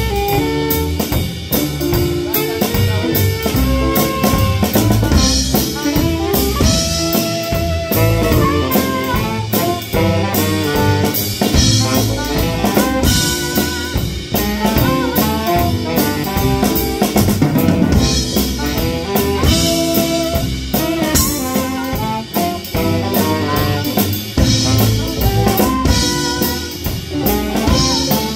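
Live jazz combo playing a swing tune: saxophones, upright bass, drum kit and electric keyboard, with the drum kit to the fore.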